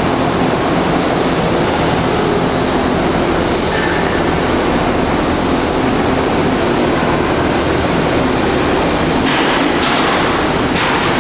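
Steady loud rumble of factory machinery with a low hum underneath, and two short hisses near the end.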